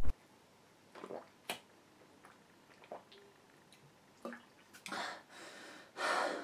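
Someone drinking water from a plastic sports bottle: a few soft, separate gulping and swallowing clicks, then two longer breathy exhales near the end.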